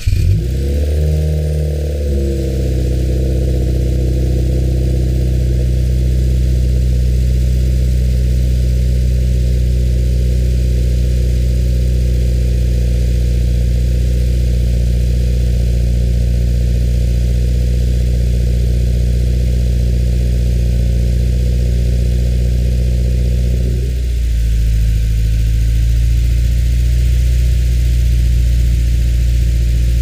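2015 Subaru WRX's turbocharged 2.0-litre flat-four, with a muffler-delete axle-back exhaust, starting up. The revs flare and fall back over about two seconds, then it idles steadily. About 24 seconds in, the idle dips briefly and settles on a slightly different note.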